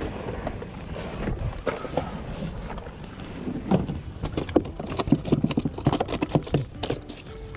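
Irregular knocking and tapping, a few knocks early on, then rapid and dense for several seconds near the middle to the end, over a low rumble of wind on the microphone.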